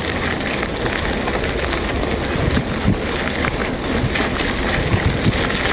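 Mountain bike rolling on a dirt and gravel track: steady wind rush on the microphone mixed with tyre crunch and many small scattered clicks and knocks.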